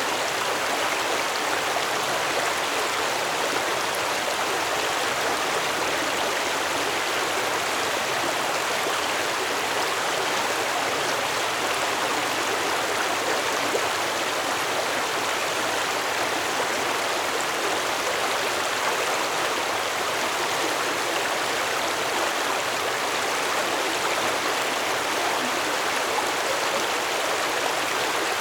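A stream of water flowing steadily, a continuous even rush and babble that does not change.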